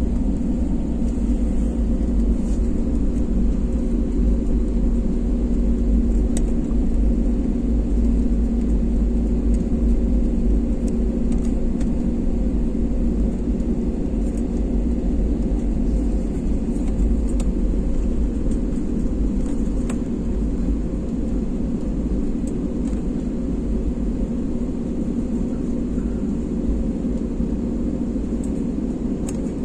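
Jet airliner's engines and cabin heard from inside while it taxis on the runway: a steady low rumble with a constant hum.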